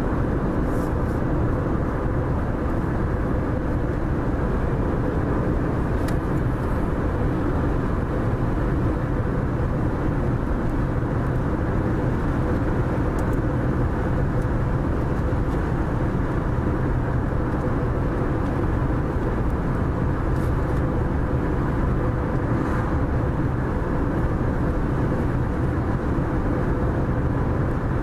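Steady road and engine noise of a car driving at cruising speed, heard from inside the cabin, with a faint steady hum.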